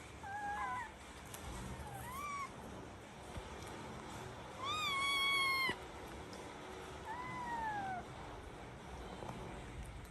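A cat meowing four times. Two short meows come first, then a longer, louder one about halfway through, and a last meow that falls in pitch.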